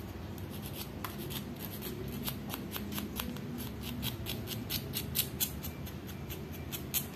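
Emery board filing the tip and side of a natural fingernail in quick short strokes, several light scratches a second. The nail edge is being smoothed and sealed against chipping.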